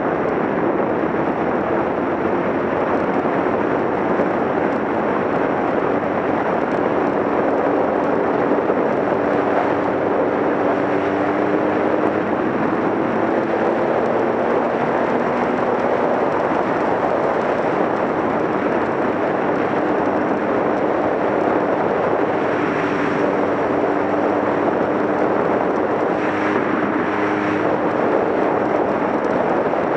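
Motorcycle riding at steady speed on a paved road: a loud, even rush of wind and road noise, with the engine's hum underneath drifting slowly in pitch.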